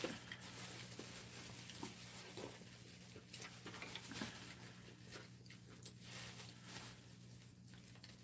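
Soft scattered clicks, taps and rustles of plastic-gloved hands pulling apart pieces of steamed seafood, with chopsticks and a spoon touching dishes, over a low steady hum.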